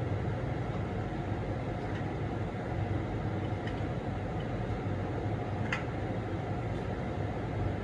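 A steady mechanical drone with a low hum and a thin steady whine, from an unseen machine running in the room. A single light click sounds about six seconds in.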